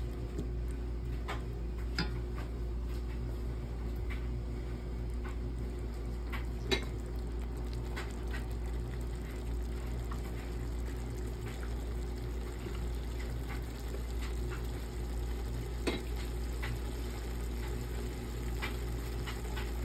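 Wooden spatula stirring a beef, onion and tomato masala in a stainless steel pot, the mixture sizzling, with a few sharp taps of the spatula against the metal, the loudest about seven seconds in.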